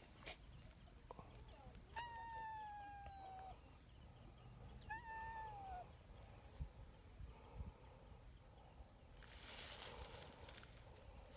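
A cat meowing twice: a long call that falls slightly in pitch about two seconds in, then a shorter call that rises and falls about five seconds in.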